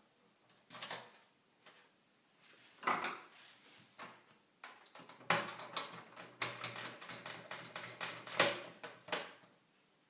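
Small screws and a screwdriver clicking and rattling against a metal case as screws are placed and driven in. There are a few separate clicks, then a dense run of quick clicks in the second half.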